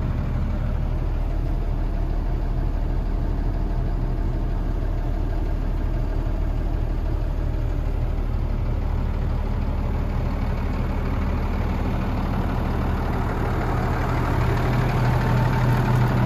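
Cummins ISB six-cylinder turbo-diesel of an International 4300 dump truck idling steadily, growing somewhat louder near the end.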